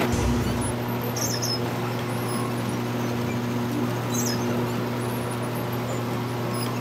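Motor-driven figures of a mechanical Christmas yard display running: a steady low motor hum with a short high squeak about every two and a half seconds from the moving linkages.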